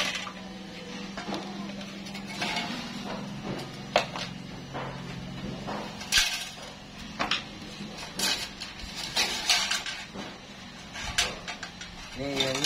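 Scattered metal clinks and knocks from the parts of a Yamaha 40 hp outboard's recoil starter being handled: the rope reel lifted off the aluminium housing and the coiled rewind spring inside it. A steady low hum runs underneath and stops near the end.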